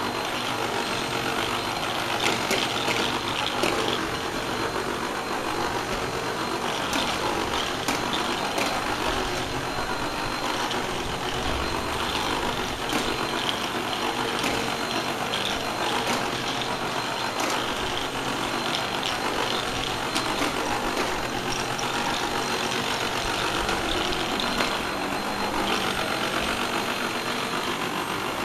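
Vacuum cleaner running steadily with a constant high whine, and scattered clicks and rattles throughout.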